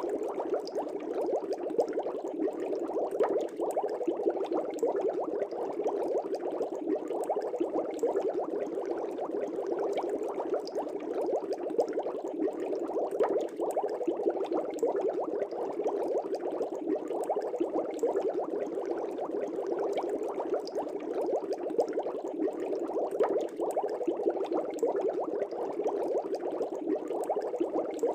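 Aquarium air bubbles rising through fish-tank water: steady, dense, mid-pitched bubbling made of many small pops and gurgles.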